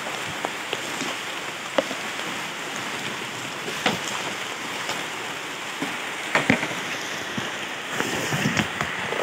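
Steady hiss of water, with a few sharp knocks about two, four and six and a half seconds in.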